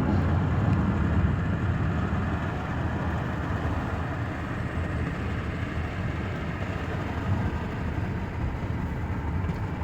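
A car's steady low rumble of engine and road noise, heard from inside the cabin.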